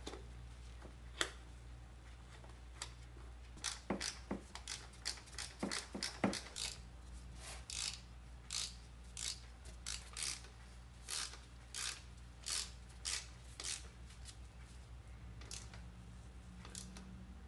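Ratchet clicking in short, regular back-strokes, about one and a half a second, as the new distributor cap's hold-down bolts are tightened. The clicks start a few seconds in and stop a few seconds before the end.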